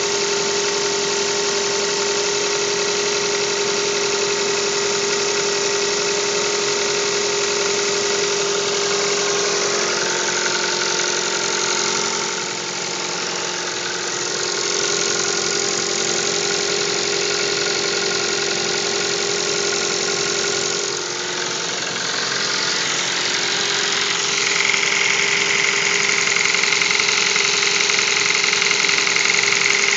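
Hyundai i30 (2012) engine running cold with a knock, the cold-engine knock the owner is recording. About twenty-five seconds in it gets a little louder and a high steady whine joins in.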